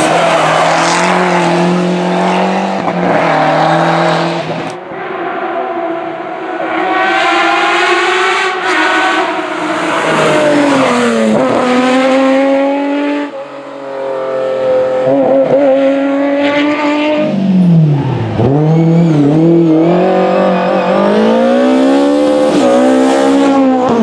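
Historic rally cars driven hard through tarmac hairpins one after another, among them a Fiat Uno and a Lancia Stratos. Their engines rev up and down through the gears, with sharp breaks about 5, 13 and 18 seconds in where one car gives way to the next.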